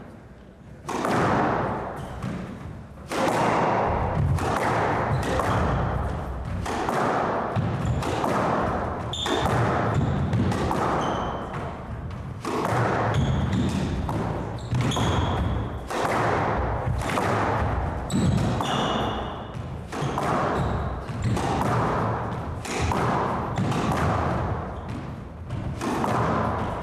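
Squash rally: a steady run of racket strikes and the ball thudding off the court walls, roughly one to two hits a second, echoing in the enclosed court. It starts about a second in, with a few short shoe squeaks on the wooden floor in the middle.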